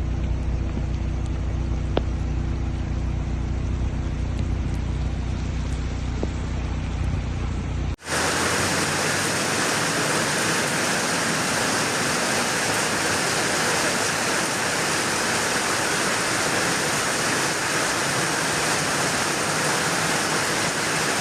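Heavy rain and rushing floodwater. For the first eight seconds a steady low rumble runs under a thin rain hiss, then after a sudden cut a loud, even rush of water takes over.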